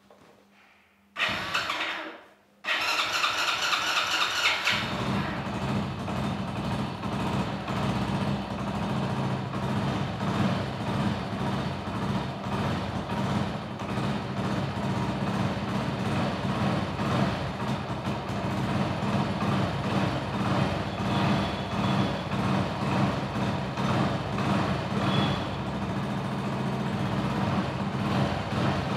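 Freshly rebuilt Hero Splendor+ 97 cc single-cylinder four-stroke engine being started: a short crank about a second in, catching a moment later, then settling into a steady idle.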